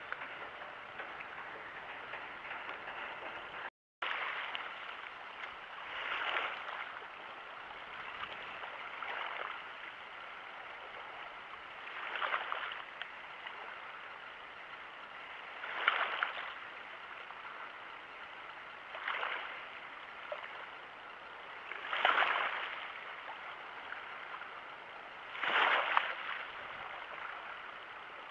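Small waves washing and lapping in shallow water: a steady wash that swells about every three seconds.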